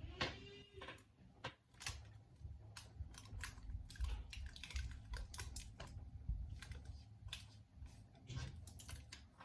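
Irregular light clicks and taps, a few a second, over a low rumble.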